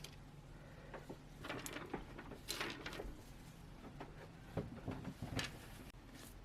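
Faint, scattered small clicks and scrapes of hands fitting a rubber piece back into a smartphone's frame during reassembly, in two short clusters.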